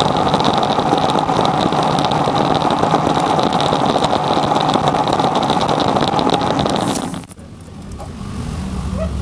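Metal lathe running steadily with a constant whine while it turns a small valve part in its chuck. About seven seconds in it is switched off and the noise drops away suddenly, leaving a fainter low hum.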